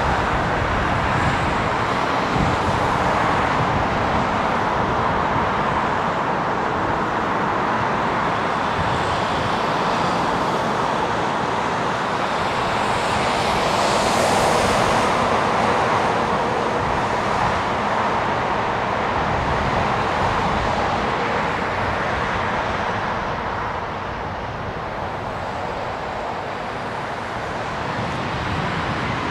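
Steady airport apron noise: a continuous rushing hum of jet aircraft and ground vehicles. It swells about halfway through and eases a little near the end.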